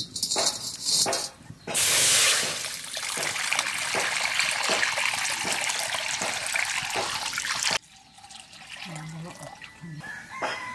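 Water poured in a stream into an empty steel kadai, splashing and gushing for about six seconds, then cut off suddenly.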